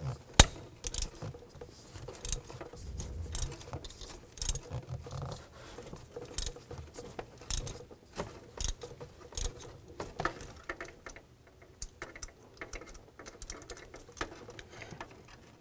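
Ratchet with a 5/8-inch spark plug socket loosening a spark plug from the engine's cylinder head: irregular runs of ratchet clicks and small metal taps, with one sharp click about half a second in.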